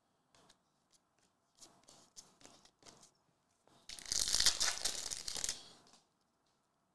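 A trading card pack wrapper being torn open: a few light rustles and clicks of cards being handled, then a loud crinkling tear about four seconds in that lasts roughly two seconds.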